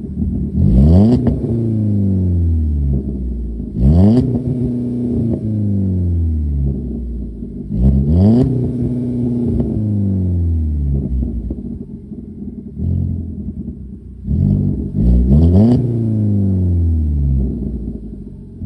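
Ford Focus engine heard at the dual tips of an MBRP cat-back exhaust with two resonators, revved from idle four times, the last as two quick blips; each rev climbs sharply and falls back to a steady idle.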